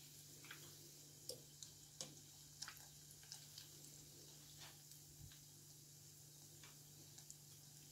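Faint, sparse crackles and pops of hot oil as semolina-coated curd balls deep-fry in a pot, a dozen or so irregular ticks over a low steady hum.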